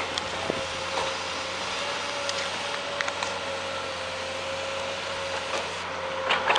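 Amphibious backhoe's engine running steadily with a thin constant whine, with scattered sharp clicks and knocks and a pair of louder knocks near the end.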